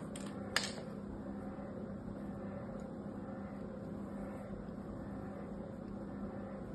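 A thin knife blade scoring lines into a dry, hard bar of soap, over a steady low hum, with two sharp ticks near the start, the second louder.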